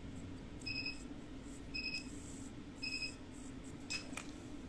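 Short electronic beeps from medical equipment in the procedure room, one high beep about once a second, over a faint steady hum.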